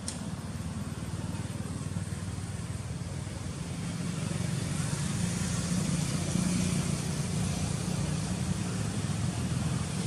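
Road traffic: a motor vehicle's engine running, growing louder over the first six seconds or so as it draws near, then holding steady.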